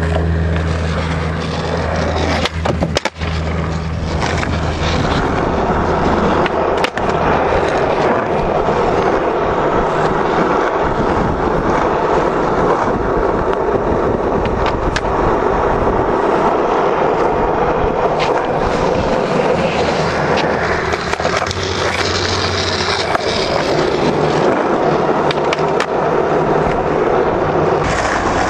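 Skateboard wheels rolling over pavement: a steady, rough rolling noise, broken by sharp clacks of the board about three seconds in and again about seven seconds in.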